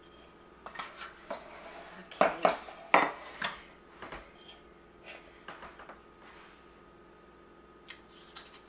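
A spoon clinking and scraping against a mixing bowl while muffin batter is scooped out and spooned into a muffin tin. The clicks come irregularly, with a cluster of louder knocks about two to three seconds in.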